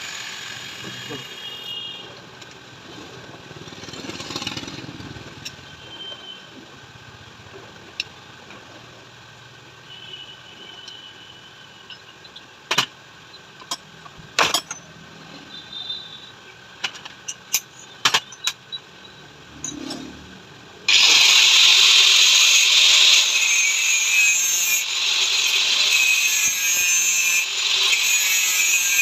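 Scattered metallic clicks and taps of hand work on a motorcycle rear shock absorber. About two-thirds of the way in, a power tool starts suddenly and runs with a loud, steady, hissing whir.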